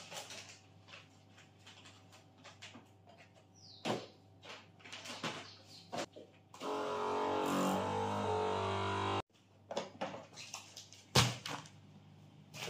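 Countertop vacuum sealer pump running for about two and a half seconds, with a steady hum and a hiss, evacuating a bag of food before it cuts off suddenly. Around it come crinkles of plastic bags and clicks from the sealer's lid, with one sharp click near the end.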